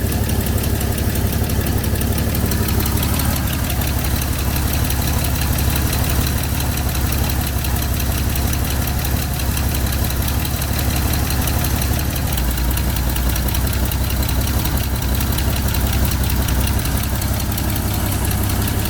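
A carbureted six-cylinder engine of a 1985 Ford Bronco idling steadily, running a little faster than wanted while its idle-speed screw is adjusted. Its note shifts slightly about twelve seconds in.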